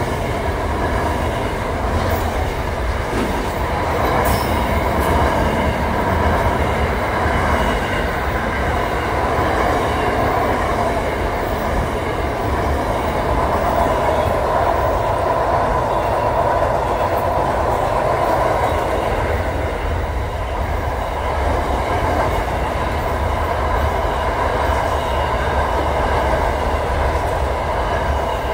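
Freight train wagons rolling past close by: a steady rumble and rattle of wheels on rail, with faint high ringing tones from the wheels.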